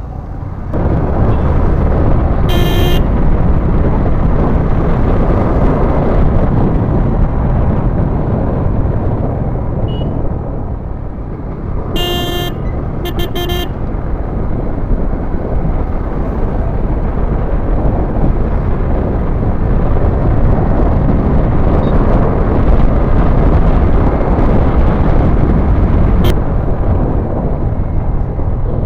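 Riding noise from a Yamaha MT-15 motorcycle on the road: steady engine and wind rush on the microphone. A vehicle horn honks once a couple of seconds in, then twice briefly near the middle.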